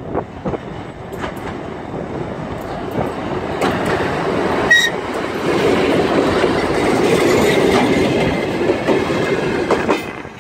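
A Ganz D1 diesel multiple unit motor car passing close by on a steel truss bridge: diesel engine running and wheels clacking over the rail joints, growing louder as it goes by. A brief high-pitched squeal about five seconds in.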